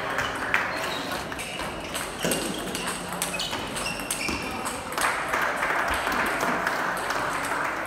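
Table tennis balls clicking off bats and tables in a rally, with more ball clicks from neighbouring tables in the hall.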